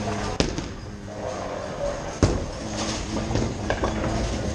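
Bowling alley din: a continuous low rumble, typical of balls rolling down the lanes, with two sharp knocks about two seconds apart, over faint background music.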